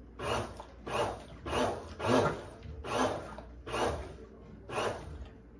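Hamilton Beach Power Elite blender run in about seven short pulses, each a brief churning whoosh of crushed ice, strawberries and lemonade.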